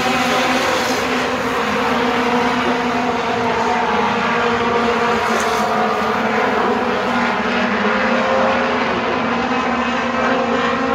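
Several dirt-track race cars running laps around the oval, their engines overlapping in a loud, steady drone.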